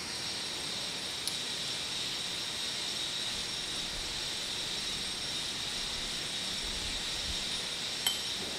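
Steady hiss throughout, with a faint click just over a second in and a light clink of glass about eight seconds in, as the glass dropper touches the beaker.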